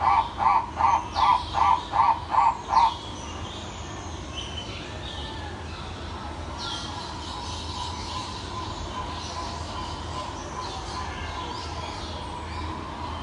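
A bird call repeated rapidly, about three loud calls a second, that stops about three seconds in. Softer background birdsong with high chirps follows.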